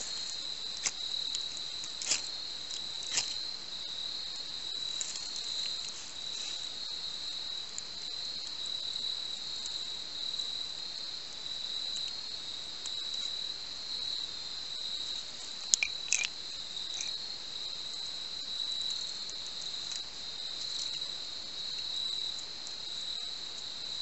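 Crickets singing in a steady high-pitched chorus, with a few short sharp clicks over it, the loudest about two thirds of the way in.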